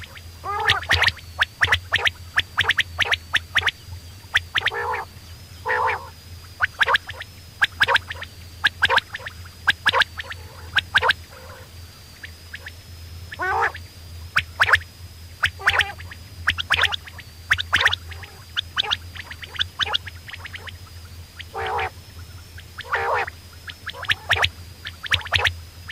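Quail calling over and over: clusters of sharp, short notes mixed with lower calls that fall in pitch, over a steady low hum.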